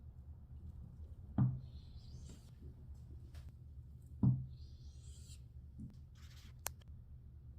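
Two soft knocks about three seconds apart, with light scraping between them and a sharp short click near the end, over a low steady hum: the handling of kitchen things.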